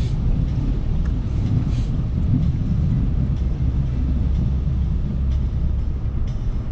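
Truck driving through high floodwater: a steady low rumble of engine and water against the vehicle, with a few faint clicks.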